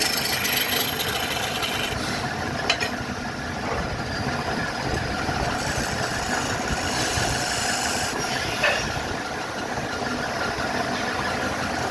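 Woodturning lathe running steadily while a turning tool cuts into a spinning blank of glued wooden veneers, with short hissing, scraping surges as the tool bites.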